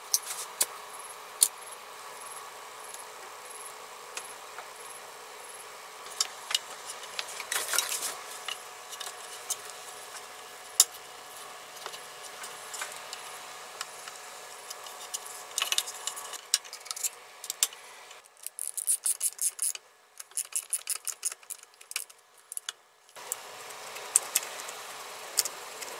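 Hands handling wires and small parts in a power tool's plastic housing: scattered light clicks, taps and rubbing, with a quick flurry of clicks about two-thirds of the way in, over a faint steady hum.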